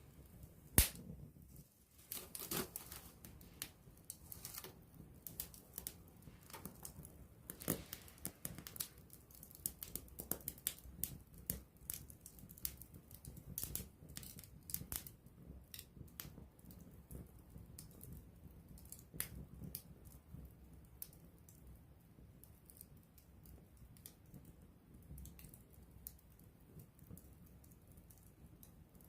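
Wood campfire crackling at close range: irregular sharp snaps and pops over a low hiss of burning, with one loud pop about a second in. The crackling is busy through the first half and thins to scattered snaps later.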